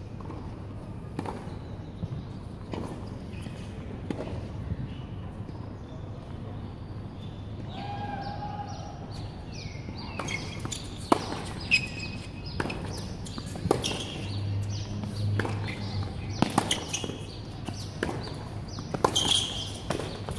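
Tennis ball bounced and struck with rackets on an outdoor hard court: scattered light knocks at first, then from about halfway a rally of sharp pops about a second apart.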